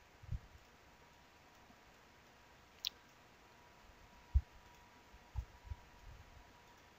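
Quiet room tone with a few scattered computer mouse clicks: one sharp click about three seconds in and several soft, dull thumps, the loudest a little past four seconds in.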